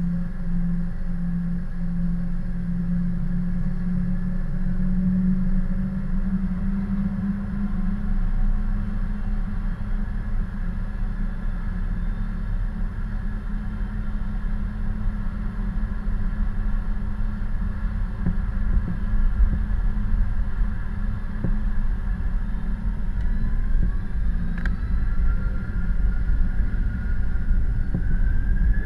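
Boeing 717 jet engines (Rolls-Royce BR715) running with a steady drone and rumble. About 23 s in, a rising whine begins as the engines spool up toward takeoff thrust, and the rumble grows louder toward the end.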